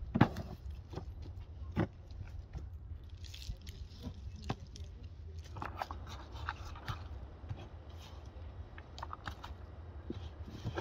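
Hands handling and mixing raw lamb pieces with chopped onion in a metal basin: irregular wet squelches and slaps of meat with scattered small clicks, over a steady low rumble.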